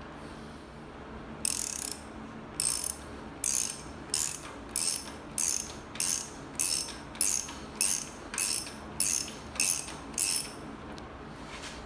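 Ratchet wrench clicking in about fourteen short back-swings, nearly two a second, as it snugs down a motorcycle fork tube top cap. The clicking starts about a second and a half in and stops about a second before the end.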